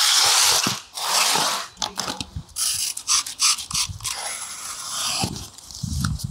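Cardboard box being unboxed: two long scraping hisses at the start, then a snap-off utility knife slicing the packing tape along the top seam with clicks and scrapes, and the cardboard flaps pulled open with dull thumps near the end.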